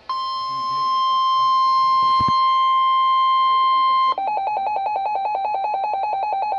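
Emergency weather alert tone: a steady high beep for about four seconds, then switching to a rapidly pulsing, warbling tone.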